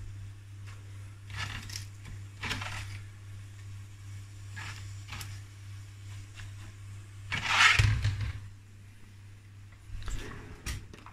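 Kitchen handling noises at a gas hob: short rustles as fresh spinach leaves are pressed into a saucepan by hand, with one louder handling noise about seven and a half seconds in, over a steady low hum. Near the end a kitchen cupboard is opened.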